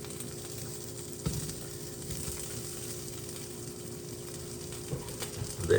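Sausage, mushrooms and cherry tomatoes sizzling steadily in a frying pan on a stovetop, with a steady hum underneath and a single click about a second in.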